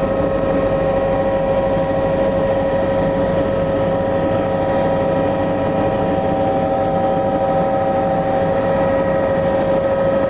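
Helicopter in flight, heard on board: a steady drone of engine and rotors with a constant whine over a rumbling noise, unchanging throughout.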